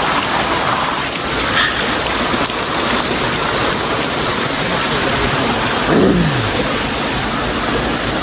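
Spring water pouring and splashing in a steady rushing noise, with a brief falling tone about six seconds in.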